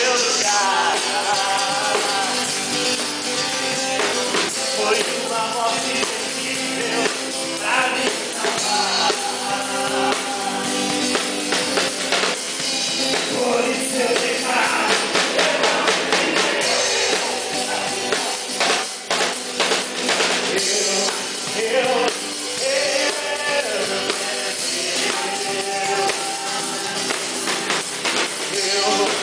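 Live worship band playing: strummed acoustic-electric guitar and a drum kit with tambourine, under group singing. Drum and percussion hits run through the whole song.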